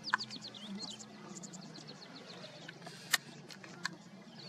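Small birds chirping, a quick run of short downward-sweeping chirps, with a few sharp clicks and a low steady hum underneath.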